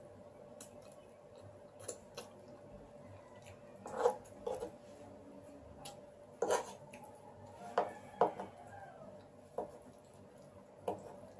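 Cutlery clinking and scraping against a plate of spaghetti in a handful of short, scattered strokes, the loudest about four seconds in and again at six and a half seconds.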